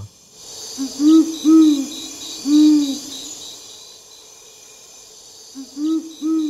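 Great horned owl (jacurutu) hooting: deep, slightly arched hoots in a phrase of a few short hoots ending in a longer one, starting about a second in, then a second phrase starting near the end. Insects pulse steadily and high in the background.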